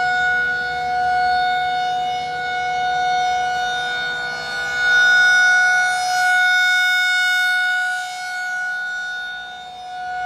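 Tornado warning siren sounding loud and close: a steady wail of several tones held together at one pitch, swelling and fading in loudness every two to three seconds.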